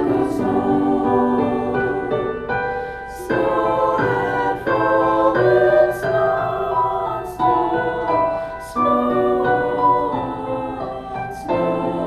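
Choral music: a choir singing held notes over organ or piano accompaniment.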